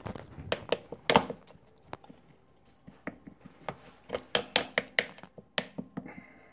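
A spoon tapping and scraping against a dish as mashed chorizo is worked into the pot: a string of irregular sharp clicks and knocks.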